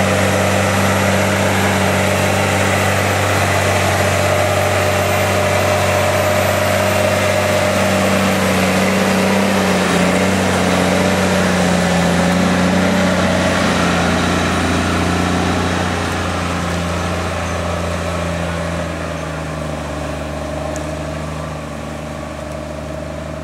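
JCB Fastrac tractor's diesel engine running steadily under load while towing a wide air drill, its pitch shifting slightly partway through, then fading gradually over the last several seconds as it moves away.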